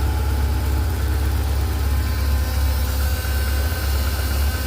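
BMW R1150GS boxer twin idling steadily, partly warmed up to two bars of oil temperature. It runs smoothly, "like a sewing machine", without the knock it develops when hot.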